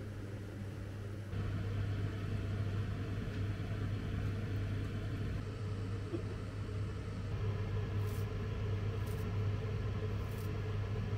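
Steady low hum over a rumbling noise, stepping up in level about a second in.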